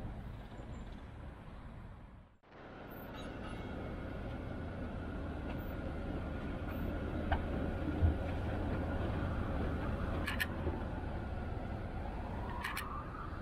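PCC series 7700 tram running: a steady low rumble with a faint whine that rises in pitch near the end, and a few sharp clicks. The sound cuts out briefly about two seconds in.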